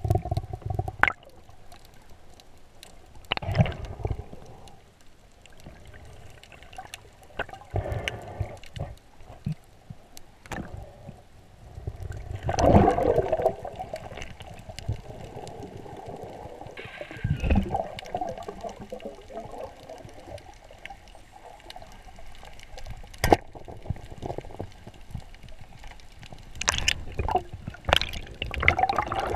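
Water sloshing and gurgling around a camera held underwater, heard muffled, with irregular swells and a few sharp clicks.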